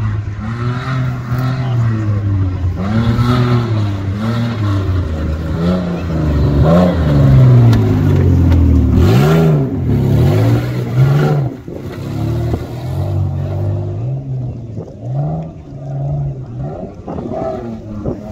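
Off-road 4x4's engine revving in repeated surges, its pitch climbing and falling over and over as it drives a muddy trial course. It is loudest about halfway through as the vehicle passes close.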